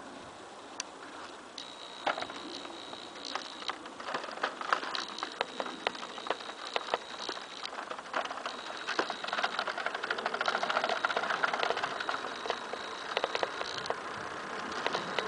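Electric bicycle ridden along an asphalt path: tyre noise with many small rattling clicks and a thin, steady high whine that cuts in and out, getting louder in the second half.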